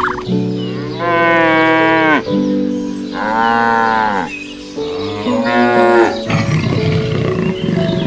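Cow mooing three times, long calls that each drop in pitch at the end, over steady background music.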